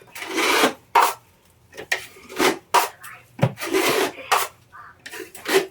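Steel drywall taping knife scraping quick-set joint compound, a series of about ten short scraping strokes as the second coat is spread and smoothed over a ceiling drywall patch.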